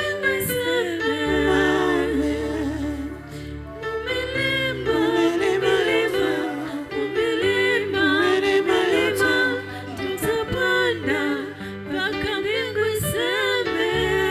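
Gospel worship song: a voice sings a melody over long held low bass notes that change every second or two.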